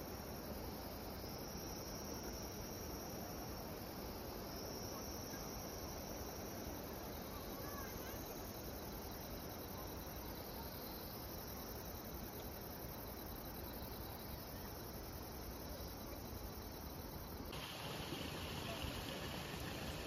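Field insects chirring steadily, a high trill swelling and fading every second or two. Near the end the sound changes abruptly to a different steady hiss.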